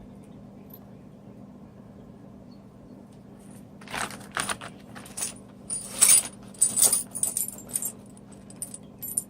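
Small metal mounting parts (screws, washers, brackets) rattling and clinking as they are handled, in a burst of quick jangles from about four seconds in until near the end, over a faint steady hum.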